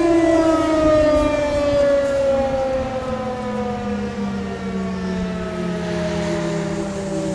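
Federal Signal 508 outdoor warning siren winding down at the end of its test run: a loud, many-toned wail falling slowly in pitch as the rotor coasts to a stop. A second, lower tone comes in underneath about two seconds in.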